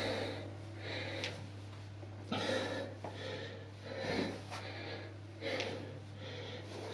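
A man breathing hard from exertion during a bodyweight exercise set: loud, noisy breaths about every second or so. A steady low hum runs underneath.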